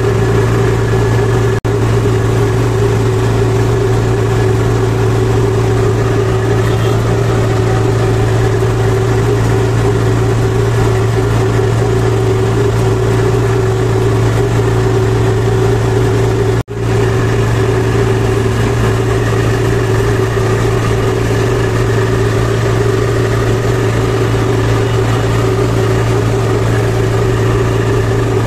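A farm tractor's diesel engine running steadily at road speed, heard from the driver's seat close to the upright exhaust stack. The sound cuts out for an instant twice, about one and a half and seventeen seconds in.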